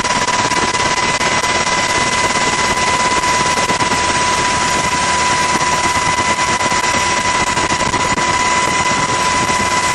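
Helicopter engine and rotor noise, a loud steady rush with a rapid chop and a steady high whine.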